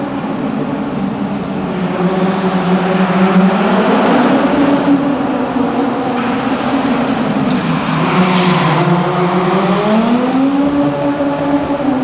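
Small hatchback's engine revving up and down as the car slides around the barriers, its pitch falling, rising, falling and climbing again near the end. A rush of tyre squeal comes about two-thirds of the way through.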